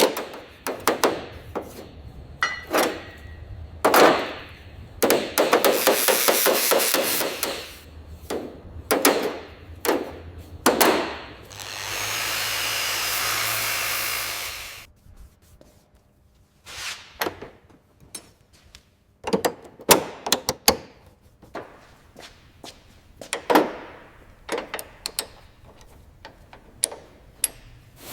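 Tools knocking and clanking during restoration work on the car, as a run of irregular sharp knocks. About five seconds in comes a couple of seconds of dense, fast rattling tool noise, and from about twelve to fifteen seconds a steady hiss.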